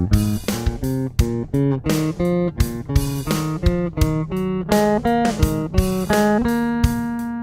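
A plucked string instrument playing a quick line of single notes, about three a second, then holding one long note for the last second or so.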